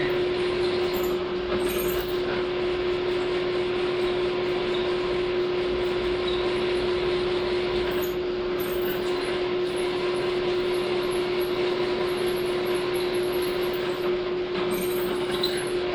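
Drill press running with a steady hum, drilling a quarter-inch tap-drill hole through steel square tube without cutting fluid.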